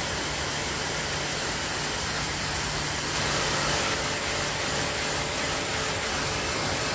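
Pressure washer running steadily: the pump's low hum under the hiss of a wide, spread-out spray of water hitting the fabric riding jacket and trousers.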